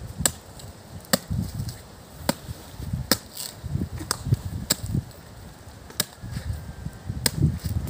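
A machete blade chopping into a coconut, a series of sharp hacks at roughly one a second with uneven gaps.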